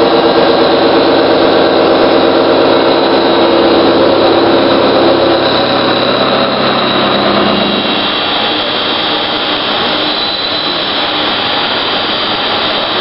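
Avantec Multiring EM90 indexable-insert milling cutter cutting a crankshaft in a CNC machine: loud, steady machining noise with a hum of several steady tones. About eight seconds in the tones fade, leaving a rougher, slightly quieter cutting noise.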